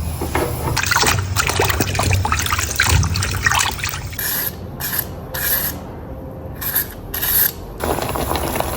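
Water running and splashing, dense and crackly at first, then broken into several short bursts with brief gaps.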